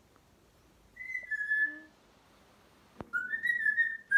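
African grey parrot whistling: one whistled note about a second in, then, after a sharp click at about three seconds, a quick run of short whistled notes.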